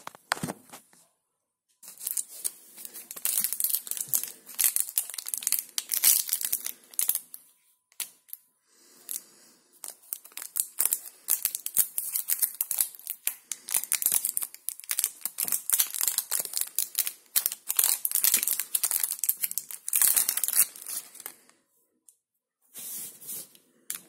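Clear plastic wrapper of a dishwasher tablet being torn open and crinkled: a long run of crackling, with a short pause and a last brief crinkle near the end.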